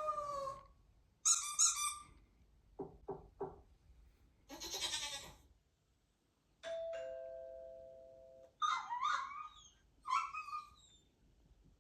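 A string of short, separate sounds played one after another: a rising-and-falling call, high chirps, three quick knocks, a hissy burst, then a two-note ding-dong doorbell chime that fades out, and finally squeaky chirps.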